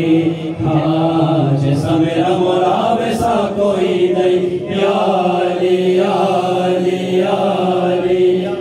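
A man singing a manqabat, an Urdu devotional song in praise of Ali, without instruments into a microphone. He holds long notes that bend in pitch, with no pause.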